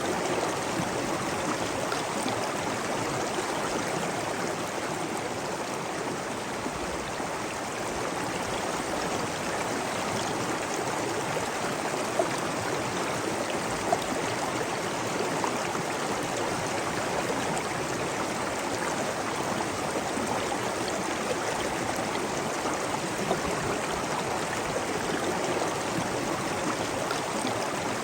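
Steady rushing water of a stream or waterfall, an even unbroken wash, with twice a brief sharper tick near the middle.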